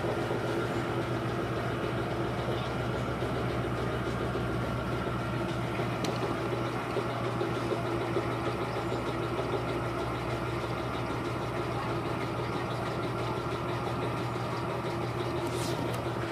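Electrolux LT13B top-loading washing machine running its wash cycle: a steady motor hum with a low tone under it.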